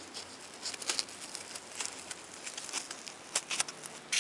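Handling noises of cotton fabric being folded and pressed against a styrofoam egg: soft rustles and scattered light clicks, with a louder brief rattle at the very end.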